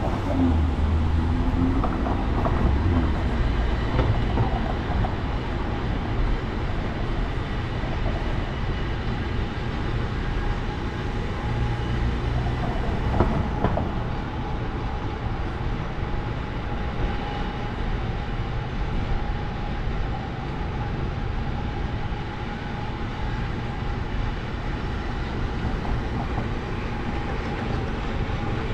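A rail vehicle running with a steady rumble and light clatter, and a faint steady whine coming in about halfway through.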